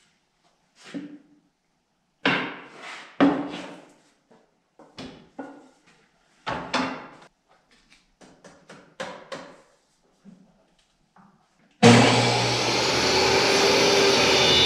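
Pieces of wood being handled on a portable table saw, a series of separate sharp knocks and clunks. About twelve seconds in, the table saw's motor starts abruptly and runs loud and steady.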